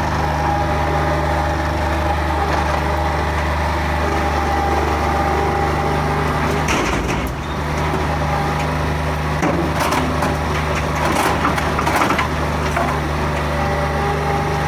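Bobcat 463 skid-steer loader's engine running steadily, dipping briefly about seven seconds in. From about ten to twelve seconds in, broken-up asphalt clatters and cracks as the loader's bucket dumps it into a dump trailer.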